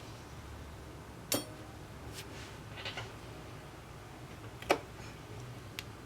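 About five small, sharp clicks and taps of repair tools against an Apple Watch's parts, the loudest about two-thirds of the way through, over a low steady hum.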